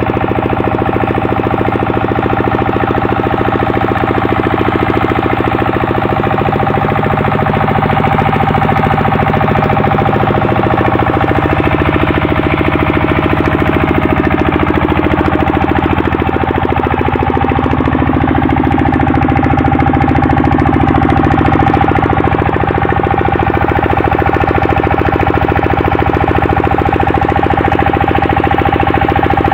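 Horizontal single-cylinder diesel engine running steadily with a fast, even firing beat, belt-driving a flour mill.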